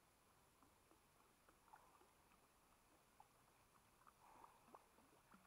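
Near silence, with faint scattered short chirps over a low hiss.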